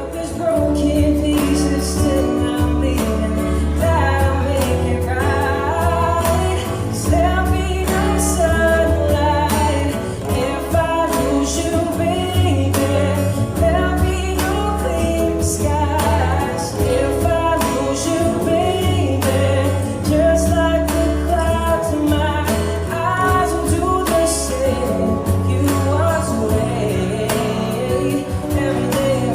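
A song with singing over a steady bass line and instrumental backing.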